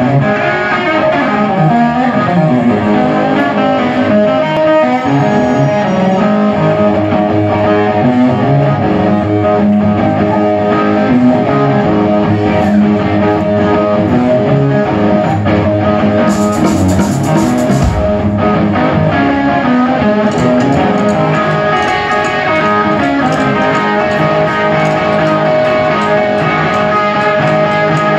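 Rock band playing live, heard from the audience: electric guitar out front over drums and bass.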